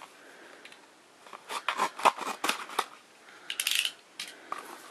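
Bubble wrap and a small cardboard mystery-figure box being opened: a run of sharp crackles and clicks, then a short crinkly rustle about three and a half seconds in.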